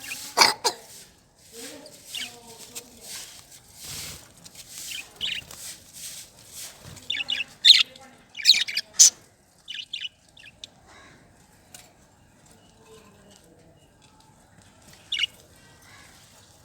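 Pet budgerigars chirping, with soft rustling of wings in the first half, then a quick cluster of sharp, high chirps about halfway through; after that only the odd faint chirp.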